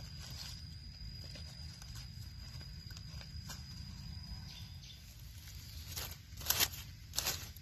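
Dry leaf litter rustling and crackling as a hand picks and handles a mushroom on the forest floor, with a few louder crunches near the end. A faint steady high tone stops about two-thirds of the way in, over a low steady rumble.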